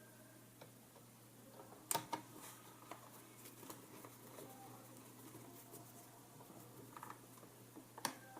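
Small screwdriver and screws being handled in a clock radio's case: faint scattered clicks and light scrapes, with a couple of sharper clicks about two seconds in and one near the end, over a faint steady low hum.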